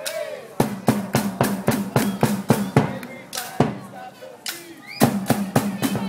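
Bucket-drumming troupe beating sticks on plastic buckets, barrels and a trash can: a fast, even beat of sharp hits, about four a second, over a ringing low tone. The beat thins out in the middle and comes back louder about five seconds in.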